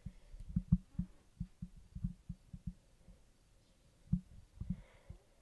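Faint, irregular low thumps and knocks of hands working a piping bag over a wooden soap mold, several a second at first, then a few more near the end.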